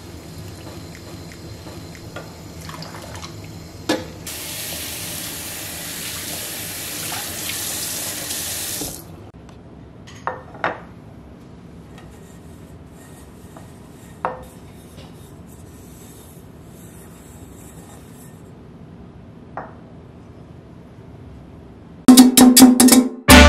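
Tap water running into a stainless steel sink while a stainless steel frying pan is scrubbed with a sponge, followed by a few short knocks and clinks as the pan is handled and dried with a cloth. Loud music starts near the end.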